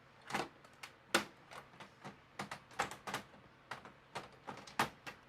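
Plastic clicks and knocks as a Brother DR431CL drum unit loaded with toner cartridges is worked back into a Brother laser printer: a dozen or so irregular, sharp clicks.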